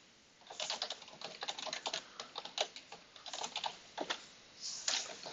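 Computer keyboard typing: a quick, uneven run of keystrokes starting about half a second in.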